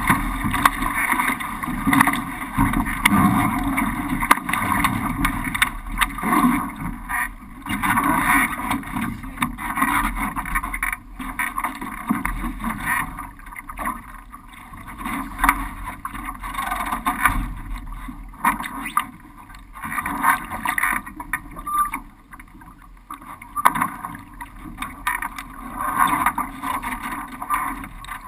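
Water rushing and splashing along the hull of a Laser sailing dinghy under way, with wind buffeting the microphone and occasional sharp knocks. It is loudest in the first few seconds while the boat heels hard with water at the rail, then rises and falls unevenly.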